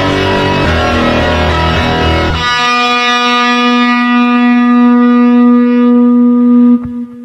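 Aggressive phonk track with heavy bass; about two and a half seconds in, the beat and bass drop out, leaving one long held distorted note that cuts off suddenly near the end.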